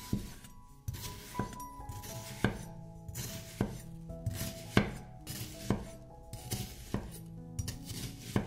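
Santoku knife slicing through an onion and striking a bamboo cutting board, one crisp cut roughly every second, over soft background music.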